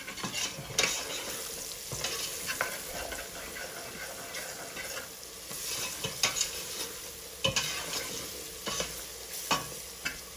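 Chopped onions frying in oil in a stainless steel pot, a steady sizzle, while a slotted spatula stirs ground spices into them, scraping and knocking against the pot every second or so.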